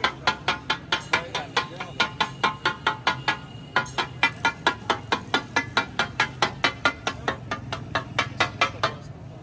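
Metal spatulas striking a flat iron tawa griddle in a fast, even clatter, about five ringing strikes a second, as the daal is chopped and mixed on it. The strikes stop shortly before the end.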